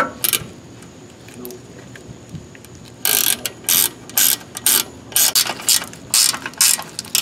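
Ratchet wrench clicking in a run of short strokes, about two a second, starting about three seconds in, as a nut is run down on the front shock absorber mount. A couple of sharp clicks at the very start.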